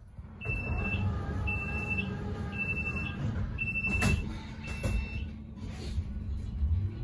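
City bus's door-closing warning beeper sounding five short high beeps about one a second while the rear door shuts, with a knock as the door closes about four seconds in. The bus engine idles with a low rumble underneath.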